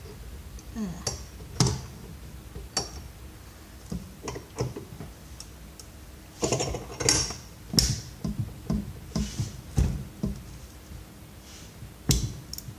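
Irregular knocks, clicks and creaks of a plastic vacuum-cleaner handle being forced and wrenched loose by hand with tools, with a grunt of effort near the start; the plastic, he thinks, is starting to break.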